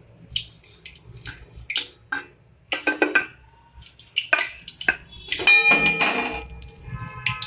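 Steel slotted ladle clinking and scraping against an aluminium kadai and a steel plate as fried samosas are lifted from the oil and tipped onto the plate. About five and a half seconds in comes a louder metal clatter, followed by a ringing tone that lingers.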